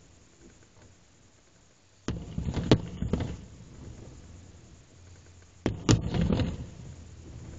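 Aerial firework shells bursting: a quick cluster of sharp bangs about two seconds in and another near six seconds, each followed by a low rumbling tail.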